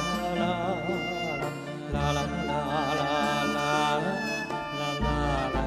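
Live band instrumental break between sung verses of a song: a lead melody with vibrato over a string section's sustained chords and a steady bass line.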